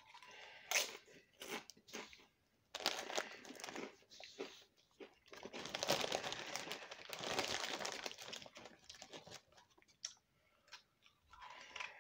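Flamin' Hot Doritos corn tortilla chips being crunched and chewed in the mouth: a few separate crunches at first, then steady crunching and chewing for about seven seconds that dies away about ten seconds in, with fresh crunches starting near the end.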